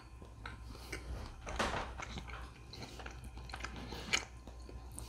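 A man chewing a mouthful of smoked chuck roast: soft, wet mouth sounds and smacks, the loudest about a second and a half in and again just after four seconds.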